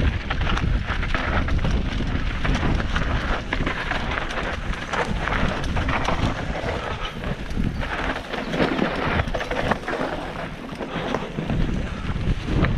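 Wind buffeting a GoPro Hero 7 Silver's microphone as a mountain bike rides down a dirt singletrack, over the steady crunch of tyres on dirt and stones and frequent clicks and rattles from the bike over bumps.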